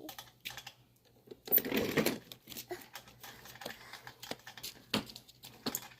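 Scattered sharp clicks and knocks of hand tools working on a dirt bike wheel, with a louder scraping rush about one and a half seconds in.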